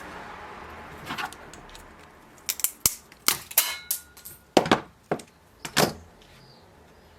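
Plastic packages of 40N60 IGBT power transistors being cracked apart with a tool: a run of about ten sharp snaps and clicks over some three seconds, following a faint steady hiss.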